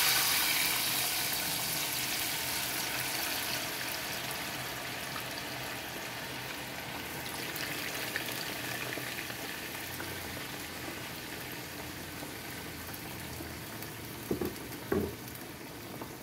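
Raw potato strips for French fries sizzling as they go into hot oil in a pot. The hiss starts suddenly and is loudest at first, then settles into a steady frying sizzle that eases off slowly.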